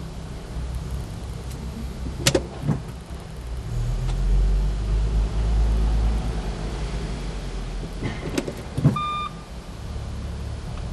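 Volkswagen R32 with a sharp knock from the car, heard as a pair about two seconds in and another pair about eight seconds in, the last the loudest, over a steady low rumble. It is an annoying knocking noise that the VW dealer has not been able to fix. A short beep sounds just after the last knock.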